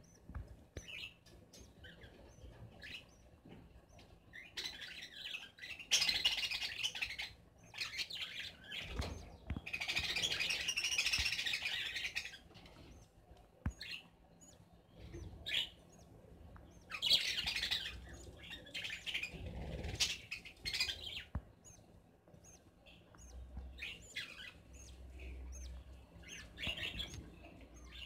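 Budgerigars chirping and chattering: a run of short, high chirps with several louder bursts of warbling chatter.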